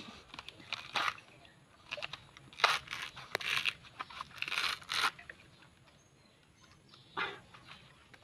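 Husk of a young green coconut being bitten into and torn away with the teeth: irregular crunching, ripping bursts of fibre, several in the first five seconds, then a pause and one more about seven seconds in.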